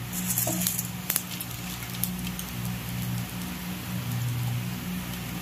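Chana dal, urad dal and mustard seeds frying in hot sesame oil in an iron kadai, a tempering: a steady sizzle with scattered pops and crackles, one sharp pop about a second in. A steady low hum runs underneath.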